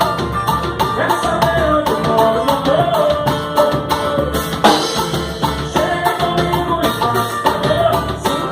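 Samba band playing live: a steady rhythm of drums and percussion under a wavering melodic line.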